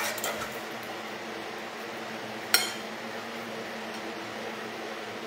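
Steady low room hum while people eat in silence, with one sharp click about two and a half seconds in.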